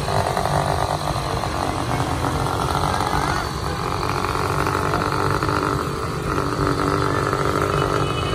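A crowd of small motorcycles running together at riding speed, engines droning steadily.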